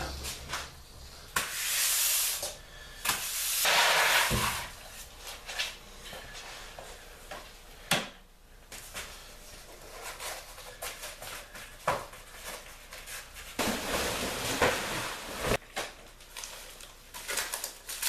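Workshop floor being cleared and covered: bursts of swishing and rustling as interlocking foam floor mats and a drop cloth are handled and laid out, with a few sharp knocks in between.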